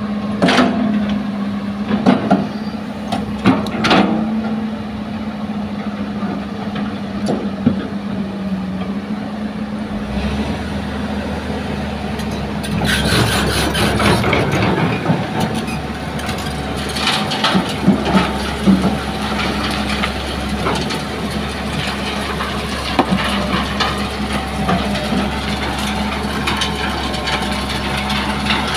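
Hitachi hydraulic excavator's diesel engine running steadily as it digs sand and swings the loaded bucket, with sharp knocks from the bucket in the first few seconds. A deeper hum joins about ten seconds in. Near the end, sand and stones pour from the bucket onto a steel sieve screen on a dump truck's bed.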